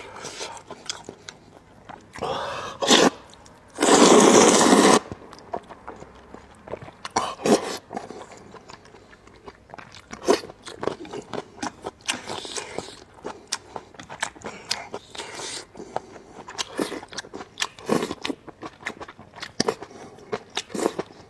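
Close-miked eating of spicy rice noodles with beef intestine: two loud slurps of noodles a few seconds in, then chewing with many small wet clicks and smacks.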